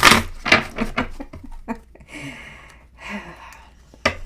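A person's breathy chuckle of several short pulses, followed by two audible breaths.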